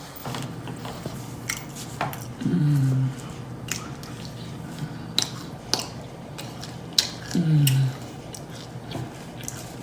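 Close-up wet chewing and lip-smacking of someone eating fast food, a run of sharp mouth clicks, broken twice by a short hummed "mm" that falls in pitch, about two and a half seconds in and again about seven and a half seconds in.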